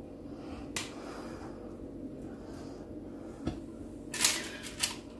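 Handling sounds from cutting soft biscuit dough with a metal bone-shaped cookie cutter and setting the cutter down on the counter: a few light clicks and taps, then two sharper rustling clatters near the end.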